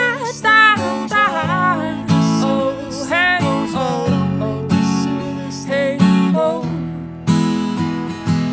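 Acoustic guitar strummed in steady chords while a woman sings wordless, sliding vocal lines over it for the first few seconds; then the guitar carries on alone, with fresh strums near the end.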